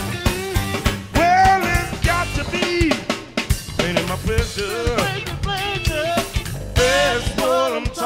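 Blues music: a drum kit keeping the beat under a lead line of bending, wavering notes.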